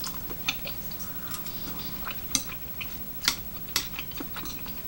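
Thin metal chopsticks clicking against a bowl while picking up rice cakes: about half a dozen sharp, separate clicks spread over a few seconds.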